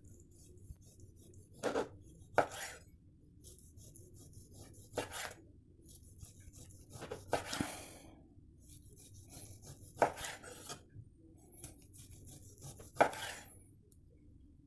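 Chef's knife slicing ham on a wooden cutting board: about six separate cuts, each ending in a sharp knock of the blade on the board.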